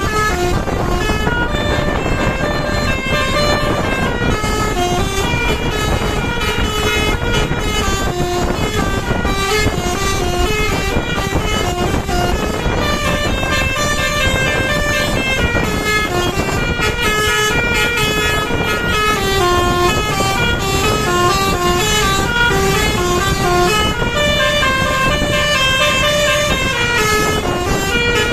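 Basuri multi-tone 'telolet' horn on an SJM Trans bus playing a long melodic run of quick stepped notes that climb and fall in repeating patterns, over a steady low rumble.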